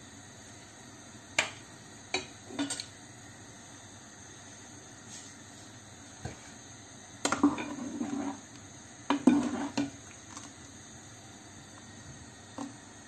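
Steel ladle knocking and scraping against a saucepan while a buttermilk-and-coconut curry is stirred: a few sharp clinks, then two short bursts of stirring clatter about halfway through, and one last clink near the end.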